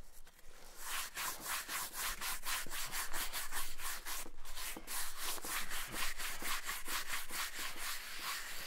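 Hand brush scrubbed rapidly back and forth over a rough stone block, a fast rasping hiss of about five strokes a second that starts about a second in. The brushing is knocking off shop dirt rubbed into the stone to give it an even patina.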